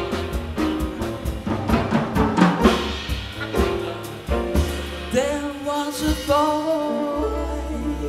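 Live jazz band with drum kit and upright bass playing the closing bars of a ballad. Drum strikes fill the first half. About five seconds in, a wavering melody line takes over, and near the end a low final note is held.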